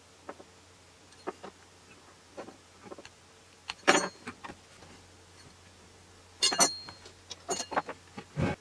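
Kitchen knife cutting and scraping the insulation on a red wire, with scattered small clicks and knocks of the knife and wire on a wooden bench. It comes as irregular short sounds, with a few louder knocks and scrapes about four seconds in and again near the end.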